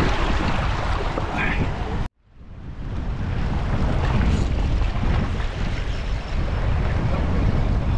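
Wind buffeting the microphone over the wash of ocean waves. The sound cuts out abruptly about two seconds in, then fades back up.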